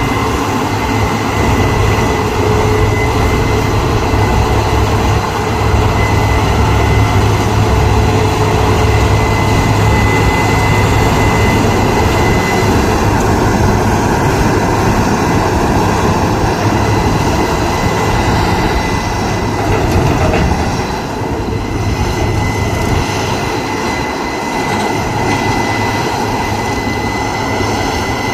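Combine harvester running steadily through the barley, a deep continuous machine drone with a thin high whine over it, easing slightly about three quarters of the way through.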